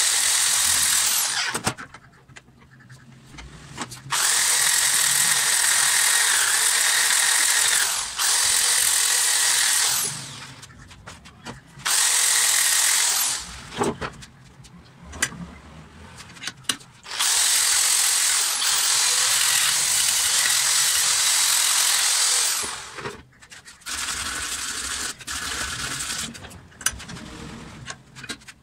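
Electric drill fitted with an abrasive disc, used as a makeshift grinder, grinding rust off a steel tap wrench held in a bench vice. It runs in several bursts of one to four seconds and stops between them, with a few metal clicks and knocks in the pauses.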